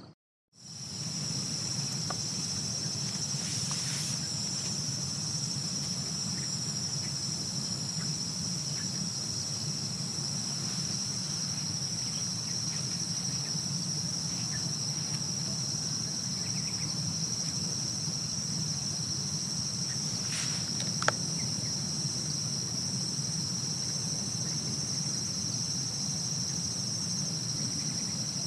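Steady high-pitched trilling of a cricket chorus over a low, even background rumble, with one sharp click about three quarters of the way through.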